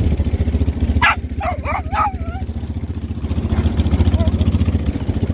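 Quad bike engine running steadily, with dogs giving several short, high yelps about a second in and a few fainter ones later.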